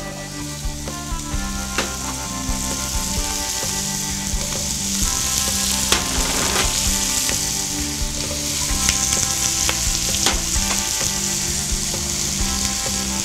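Chopped onion, celery and carrot sizzling as they are tipped into a hot, oiled enamelled cast-iron Dutch oven, the sizzle growing louder as more vegetables go in, with a few light knocks along the way.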